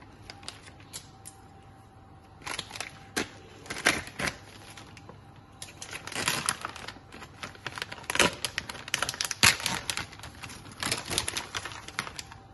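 Thin plastic baguette bag crinkling and crackling as it is worked open and the loaves are pulled out. The crackles are irregular: sparse at first, then in busy clusters from about two and a half seconds in.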